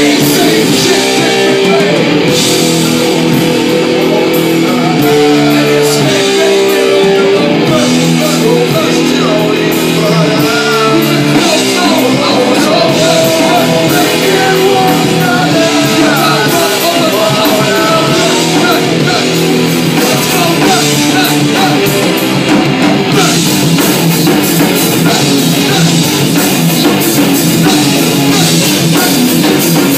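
Rock band playing live and loud: electric guitar, bass guitar and drum kit, with a vocalist singing into a microphone.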